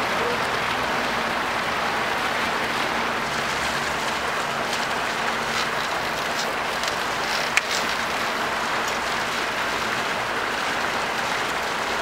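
Steady hiss of running, splashing water, with one sharp click about seven and a half seconds in.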